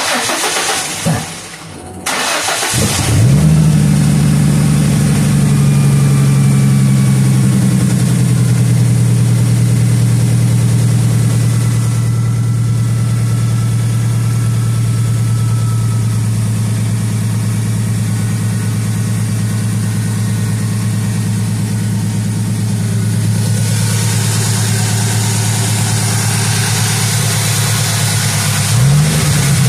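1997 Ford Mustang's 3.8-litre V6 engine cranked by the starter and catching about two seconds in, then running at a fast idle that settles a little lower a few seconds later and holds steady. Near the end the engine revs up briefly.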